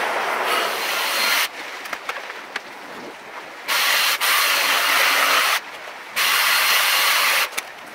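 A car's brake disc being scrubbed clean by hand: three long spells of rasping scrubbing with short pauses between.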